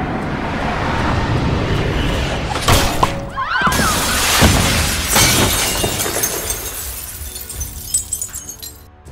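A slam dunk smashes a glass basketball backboard. A heavy hit about three seconds in is followed by the glass bursting apart, and then the shards rain down and tinkle, dying away near the end. Music plays underneath.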